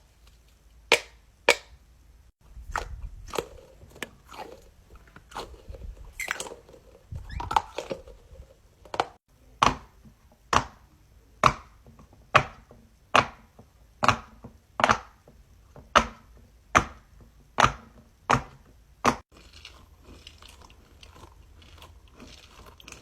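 Pop-it fidget toy's bubbles being pressed one after another, each giving a sharp pop, steadily at just under one a second through the middle; some rustling and handling in the first few seconds.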